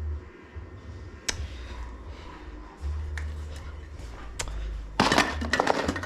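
Hard objects being handled on a workbench: a few separate clicks and knocks, then about five seconds in a dense spell of clinking and rattling clatter, as of tools or metal items being rummaged through.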